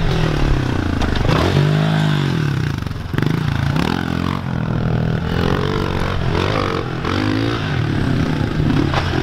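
Pit bike engines revving as the small dirt bikes are ridden over dirt jumps. The engine note climbs and drops again about every second.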